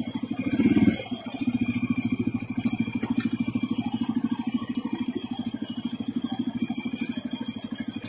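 CFMoto CForce 600 ATV's single-cylinder engine running under load while riding, with a steady firing pulse. It revs up briefly just under a second in, then settles back.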